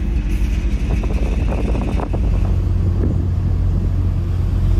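Wind buffeting the microphone over a steady low rumble from the passenger-cargo ferry's engines while the ship is under way.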